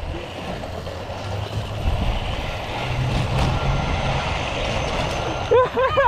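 Zip coaster trolley rolling fast along its overhead steel rail, a steady rumbling rush with a low hum that grows a little louder partway through. Near the end a rider's voice cuts in with quick wavering cries.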